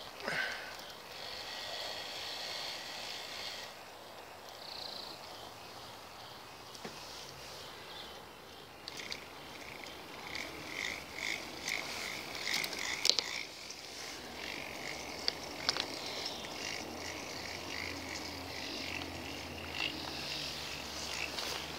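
A K'NEX swing ride's electric motor and plastic gears running, with scattered sharp clicks.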